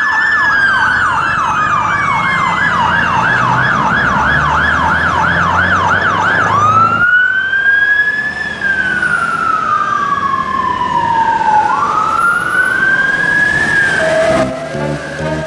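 Electronic emergency-vehicle siren: a fast yelp rising and falling about three times a second, which switches about seven seconds in to a slow wail that rises and falls. Music comes in near the end.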